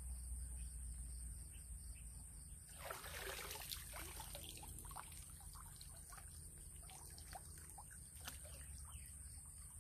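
Water pouring and trickling off a wader's arms and body as he straightens up in a shallow stream about three seconds in, followed by scattered drips and small splashes. A steady high insect drone carries on underneath.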